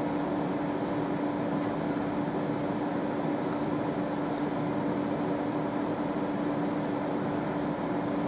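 Steady background hum with a constant low tone, like a room fan or air conditioner running, even in level throughout.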